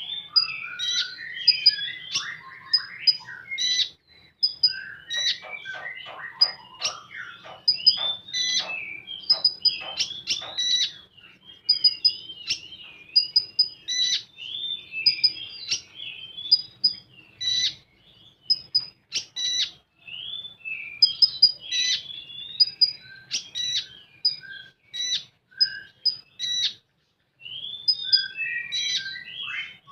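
Common iora (konin) singing: a fast, chattering warble broken by short, sharp high notes repeated again and again, with a rapid run of clicking notes about five to ten seconds in.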